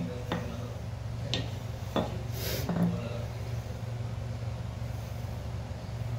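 A few light knocks and handling noises of a wooden rolling pin and dough on a stone counter, with a brief rustle about two and a half seconds in, over a steady low hum.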